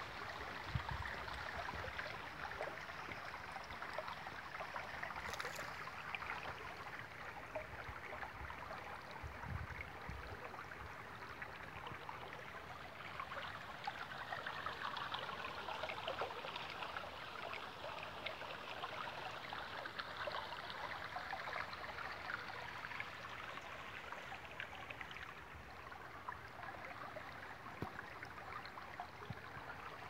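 Shallow stream water running over flat rock slabs, a steady even rush of water, with a few low bumps in the first ten seconds.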